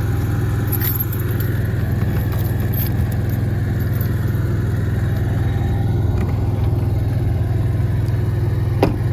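RV's onboard generator running steadily with a low hum. Keys jingle briefly about a second in, and a sharp click comes near the end.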